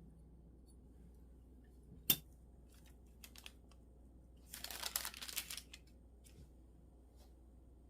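Small handling sounds while preparing food: a single sharp click about two seconds in, a few light ticks, then about a second of rustling near the middle.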